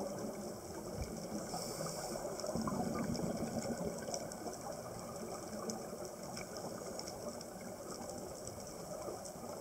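Underwater reef ambience: a steady low rush with scattered faint clicks and crackles, and a brief high hiss about one and a half seconds in.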